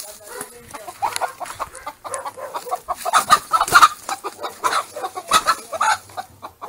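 Chickens clucking in a run of short, irregular calls, busiest in the middle of the stretch.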